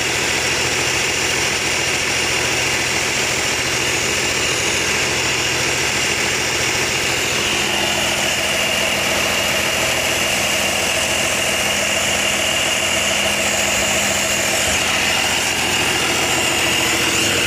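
Rebuilt Komatsu 6D95 six-cylinder diesel engine running steadily on a test run, with a steady high whine over the engine note; a lower tone joins about halfway through.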